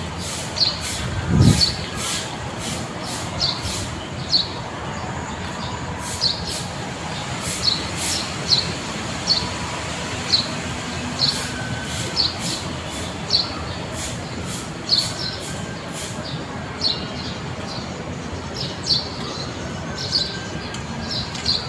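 Stiff stick broom sweeping over paving and ground, in repeated scratchy strokes that come irregularly, at times a couple a second.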